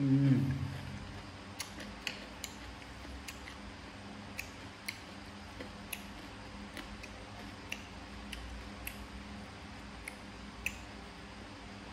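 Close-up eating sounds of papaya salad and grilled pork being chewed: sharp, irregular mouth clicks and crunches, roughly one every half second to a second. It opens with a brief, louder low sound that drops in pitch.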